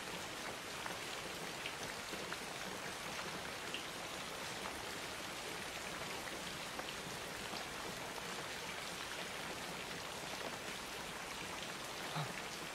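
Steady rain falling, an even hiss with scattered faint drip ticks. A brief soft low sound comes near the end.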